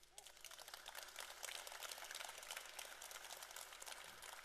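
Audience applauding: a dense patter of many hands clapping that builds up over about the first second.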